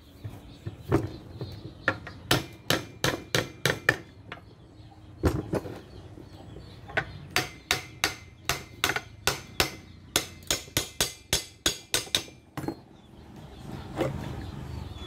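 A hammer tapping again and again on a Mitsubishi Lancer alternator's housing, about three sharp knocks a second in runs with brief pauses, to loosen its two halves apart once the through-bolts are out.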